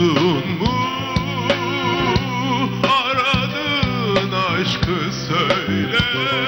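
A man singing live into a handheld microphone, a slow melody with a wavering, ornamented line, over instrumental backing with steady held low notes.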